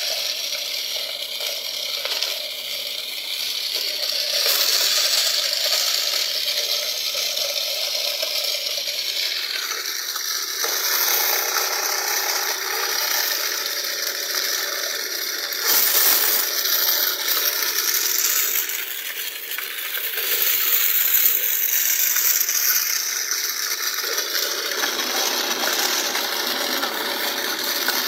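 Homemade wooden toy tractor's belt-and-pulley drive running with a continuous metallic rattle and clatter, growing fuller about a third of the way in and lighter again near the end.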